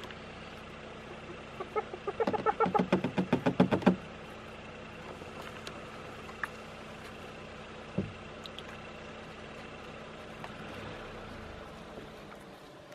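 Spotted hyena giggling: a rapid run of pitched yelps, about seven a second and growing louder, from about two to four seconds in. A single knock about eight seconds in.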